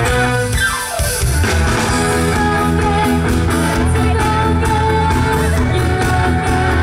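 Instrumental break of a band song with guitar, bass and a steady beat. A falling pitch sweep comes about a second in, then a held lead melody line.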